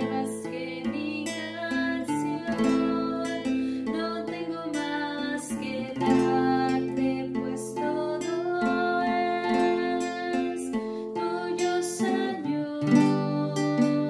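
Nylon-string classical guitar strumming and plucking chords, the chord changing every one to two seconds.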